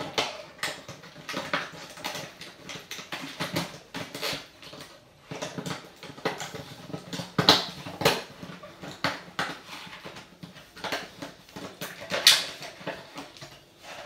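Hotpoint WMFUG 942 front-loading washing machine drum turning laundry through water: irregular sloshing and splashing as the wet load tumbles, with two louder splashes, one about halfway through and one near the end.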